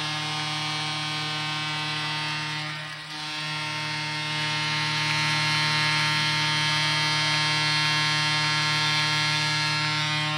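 Arena goal horn sounding one long, steady blast for a home-team goal, with a brief dip about three seconds in. It cuts off just at the end.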